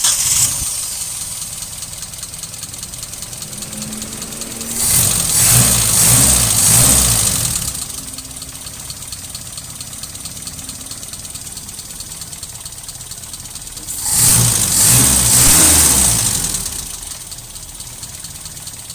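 Mitsubishi 4G33 four-cylinder engine idling roughly just after starting, twice swelling louder for about three seconds before settling back. A rough idle blamed on a vacuum leak.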